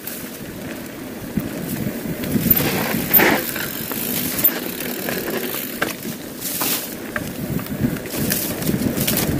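Mountain bike rolling fast down a dirt singletrack: knobby tyres rumbling over the trail, with scattered rattles and knocks from the bike over bumps, growing louder over the first few seconds.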